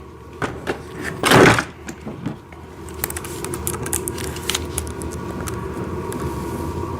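Handling of the toy excavator's parts and screws: scattered light clicks and knocks, with a short rustle-like burst about a second and a half in, then a low steady hum under faint clicks.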